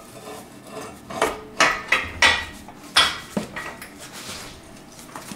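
Steel engine-stand mounting head clanking against the engine's adapter plate as it is fitted and lined up: about five sharp metallic clanks in quick succession, with a smaller one after.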